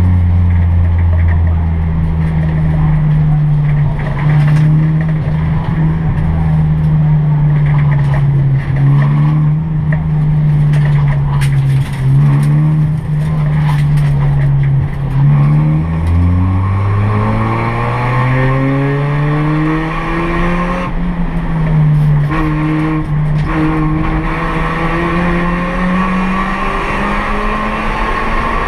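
In-cabin sound of a Honda Brio race car's 1.2-litre L12B i-VTEC four-cylinder engine, through an aftermarket racing exhaust, running at steady mid revs. Just past halfway the revs drop and then climb steadily for about four seconds under acceleration, dip briefly about three-quarters through, and hold steady again.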